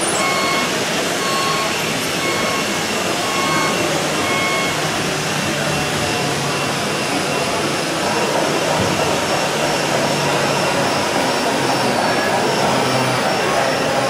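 Steady rushing hall noise with a faint electronic warning beep repeating about once a second; about midway the beep changes to a higher pitch.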